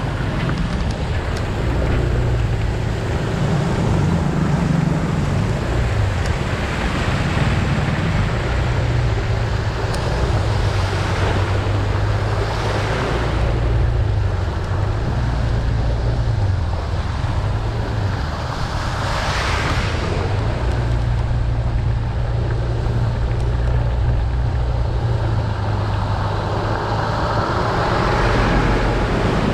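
Motor scooter riding through floodwater: wind buffeting the action-camera microphone over the running engine, with the hiss of water thrown up by the tyres swelling now and then.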